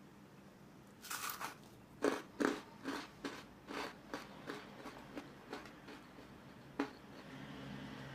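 Crispy fried grated-potato fritter bitten into with a crackling crunch about a second in, then chewed: crunchy chews about two a second that gradually fade. One sharp click near the end.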